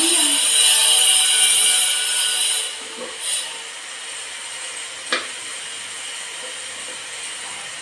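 Diced carrot rustling in a plastic basin as a hand stirs through it for the first few seconds, then a single knife knock on a wooden cutting board while a carrot is cut.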